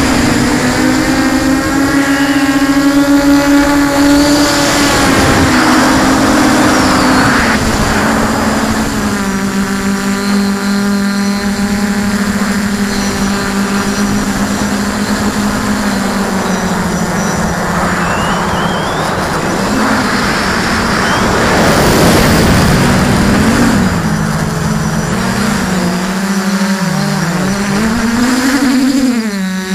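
QAV400 quadcopter's four brushless motors and propellers whining, heard from on board the frame. The pitch holds steady, dips a little about seven seconds in, then wavers up and down with throttle changes near the end.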